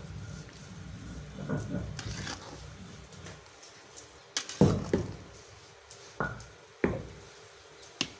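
Flat metal spatula stirring chunks of mango in sugar syrup in an aluminium pot, knocking and scraping against the pot about six times in the second half. A low rumble fills the first few seconds.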